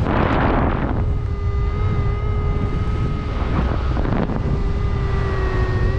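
Wind buffeting the microphone over a constant low rumble, gusting hard for about the first second. From about a second in, a steady whining tone sounds over the rumble.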